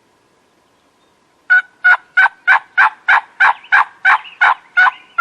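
Wild turkey yelping close by: a long, even run of about a dozen loud, short notes, roughly three a second, starting about a second and a half in.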